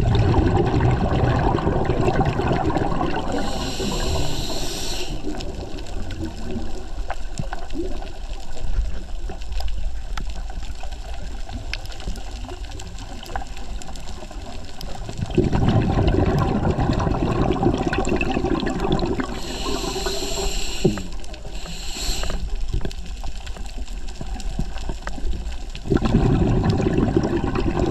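Scuba breathing recorded underwater: the diver's exhaled bubbles rumbling and gurgling from the regulator, heaviest from about halfway through and again near the end, with a few short hisses of inhalation through the regulator.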